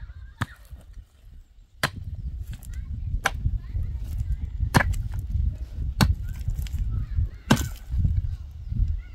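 Pickaxe striking hard, stony soil: about seven sharp blows, roughly one every second and a half, over a steady low rumble.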